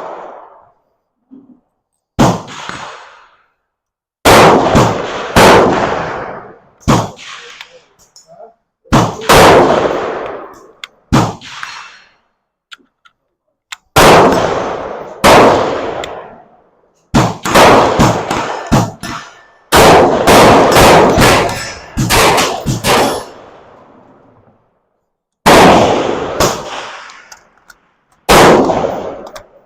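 Rifle gunfire: about two dozen shots at irregular intervals, some singly and some in quick strings, each followed by a long echoing decay. Among them are .223 rounds from a Ruger Mini-14 fired at a Tannerite target.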